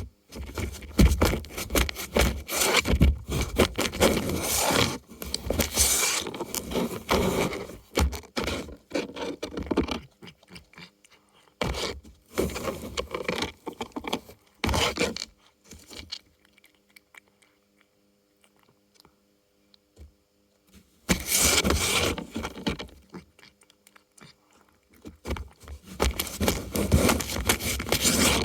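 Cardboard food toy scraping and rustling as cats work at it, in irregular bursts: busy for the first third, then shorter bursts, a few quiet seconds past the middle, and two more bursts near the end.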